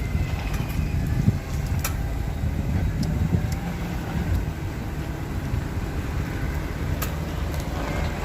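BMW E39 moving slowly with a low rumble, its front suspension giving a biting creak and a couple of sharp clicks. The owner traced the noise to a front ball joint short of lubrication.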